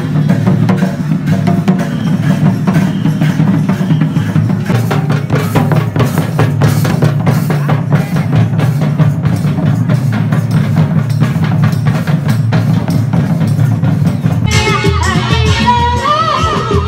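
Adivasi folk drumming on hand-played barrel drums, a fast, dense, steady beat. About fourteen and a half seconds in it gives way to a different piece, with a melody over a heavier low beat.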